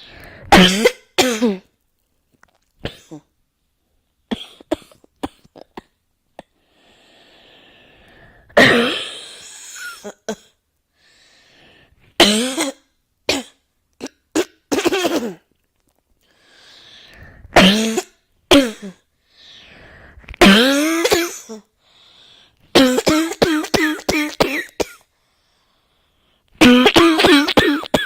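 A person coughing over and over in bouts, drawing breath between them. A little before the end comes a fast run of about eight coughs in a row.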